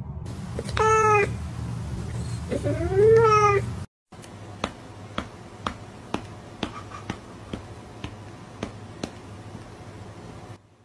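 A domestic cat meowing twice, each meow rising and then falling in pitch, over a low hum. After a brief cut, a run of sharp clicks follows, about two a second.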